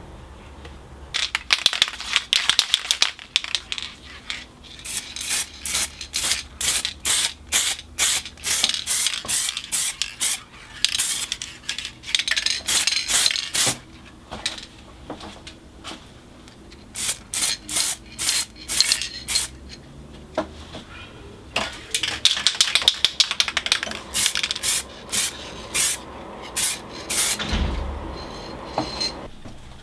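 Rapid back-and-forth scraping strokes of a hand-worked abrasive or tool on the workpiece, about two to three strokes a second, in several runs with short pauses between. A low thump near the end.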